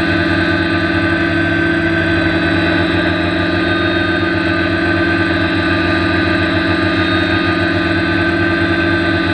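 Multirotor drone's electric motors and propellers spinning steadily at low throttle, heard from a camera mounted on the frame: an even hum made of several constant tones that holds the same pitch throughout.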